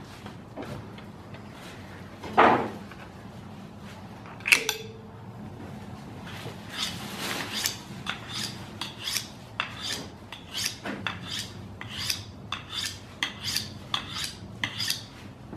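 A Mora Companion knife being honed on a butcher's sharpening steel: quick scraping strokes of blade on steel, about two a second, starting around six seconds in. Before that, a knock and a sharp metallic clink with a brief ring.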